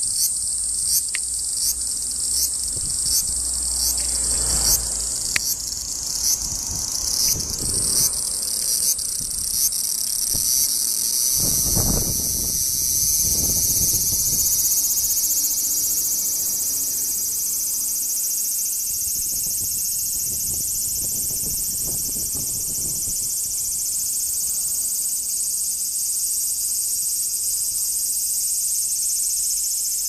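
Large brown cicada (aburazemi) singing close by: a high, sizzling buzz that first comes in pulses about one and a half a second, then runs together into one continuous sizzle about twelve seconds in. A few low rumbles on the microphone along the way.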